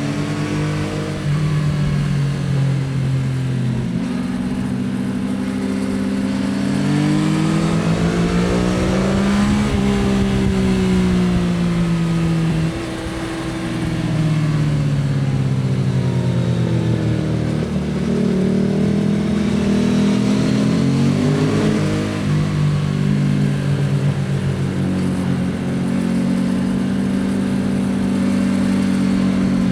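2024 Yamaha XSR 900's three-cylinder CP3 engine and exhaust under way. The revs repeatedly climb and fall as the rider accelerates out of corners and backs off for the next. There is a short drop in level about 13 seconds in, and it runs steadily near the end.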